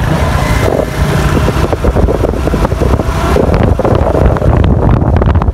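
Wind buffeting the microphone of a camera held on a moving motorcycle, with the motorcycle's engine running under it.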